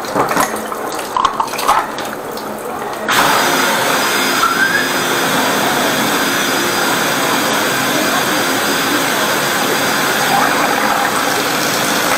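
High-pressure drain jetter starts up suddenly about three seconds in and runs steadily. Water churns and splashes in the floor drain as the jetting hose works at the blocked sewer line. Before it starts there are a few splashes and knocks as the hose is handled in the drain.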